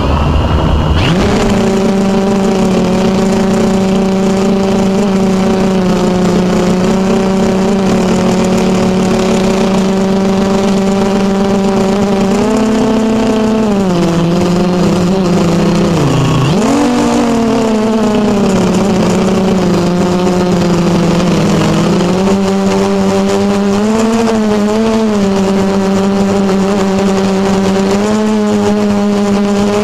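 Small model engine of a radio-controlled aircraft running steadily at high revs, heard close up. Its pitch sags and recovers twice about halfway through, and wavers a little near the end.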